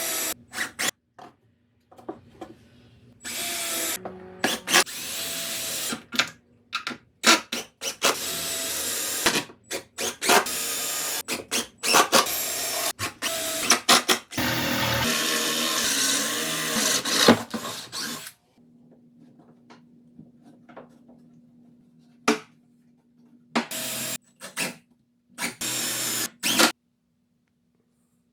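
Power-tool noise, led by a drill running in bursts, in short cut-together clips with sharp knocks between them. The last ten seconds are quieter, with a low steady hum and a few brief loud bursts.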